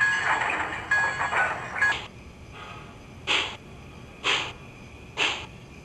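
Steam sound effects from the onboard sound system of an MTH HO-scale Dreyfuss Hudson locomotive model, played through its small speaker. A hiss with a few faint ringing tones lasts about two seconds. Then slow, evenly spaced exhaust chuffs come about one a second as the locomotive moves off.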